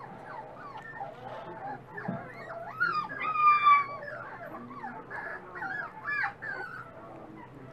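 Miniature dachshund puppies whining and yipping in short rising and falling cries, with one longer whine held for about a second around three seconds in, the loudest, and another burst of cries near six seconds.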